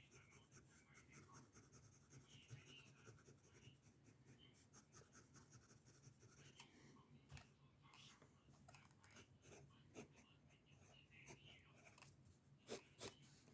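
Faint pencil strokes on paper: quick, light scratching in a rapid irregular series, with two sharper taps near the end.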